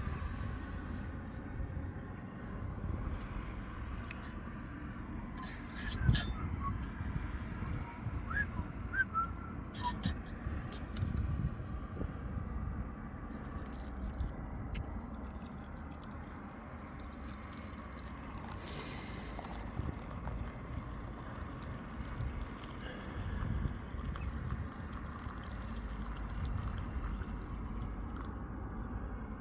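Mug, spoon and kettle clinking and being handled while coffee is made, with a few sharp clinks about six and ten seconds in, over a steady low rumble of wind on the microphone.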